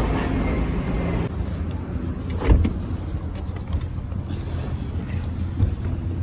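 Car on the move: a steady low drone of engine and road noise, with a sharp knock about two and a half seconds in.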